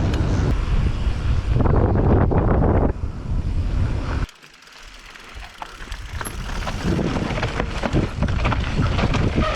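Wind buffeting the microphone of a GoPro Hero 8 on a mountain bike riding down a trail, mixed with the rattle of tyres and bike over rough ground. The rumble drops away suddenly about four seconds in, and quick clicking and rattling builds again over the following seconds.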